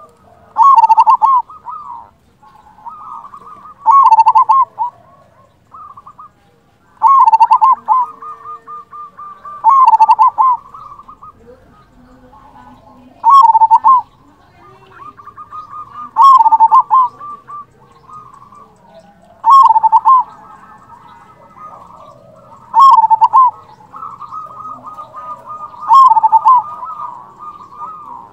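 Zebra dove (perkutut) singing: a loud cooing phrase repeated about every three seconds, nine times, with softer quick rolling notes between the phrases.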